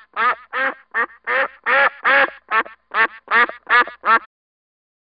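Duck quacking in a quick run of about a dozen quacks, roughly three a second, stopping about four seconds in.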